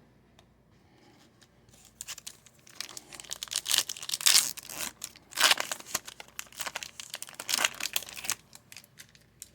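Wrapper of a hockey card pack being torn open and crinkled: a dense run of crackling from about two seconds in until near the end.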